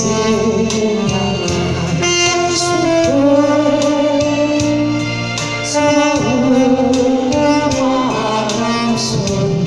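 Saxophone playing a melody of long held notes over a backing track with a steady beat.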